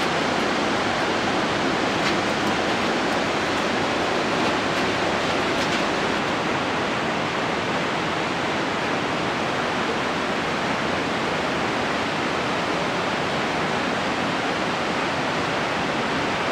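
The Reka river rushing over rapids and a waterfall at the bottom of the gorge: a steady, unbroken wash of water noise.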